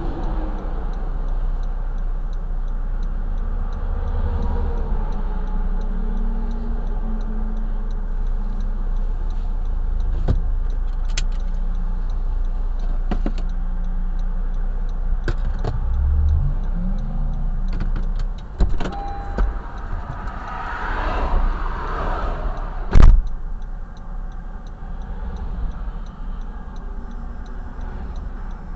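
Interstate traffic rushing past a car stopped on the shoulder, heard as a steady low rumble with trucks swelling by, while the car's hazard flasher ticks. About two-thirds of the way in come clicks and rustling, then one sharp bang, a car door being shut as the driver gets out.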